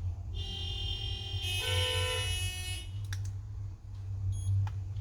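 A vehicle horn sounds for about two and a half seconds, getting louder partway through. Then come a few sharp clicks and a brief high electronic beep, over a steady low hum.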